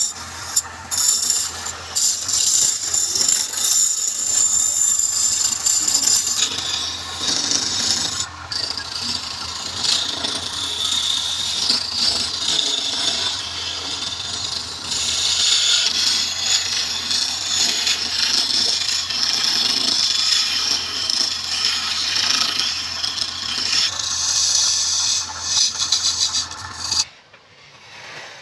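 Wood lathe running, with a tool or abrasive scraping and rubbing against the spinning wood in a steady hiss over the motor's low hum. Both stop suddenly near the end.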